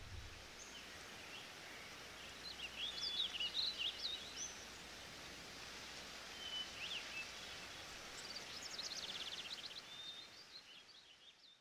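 Birds chirping, with a few rapid trills, over a steady faint outdoor hiss. The sound fades out near the end.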